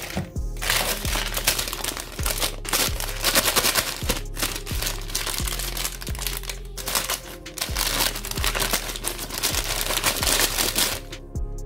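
White tissue paper crinkling and rustling as hands unwrap and crumple it, starting about half a second in and stopping near the end. Background music with a steady beat plays underneath.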